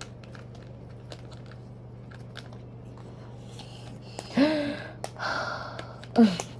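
Soft clicks and taps of jigsaw puzzle pieces being handled, over a steady low hum. Two short wordless voice sounds come in the second half, the last one falling in pitch.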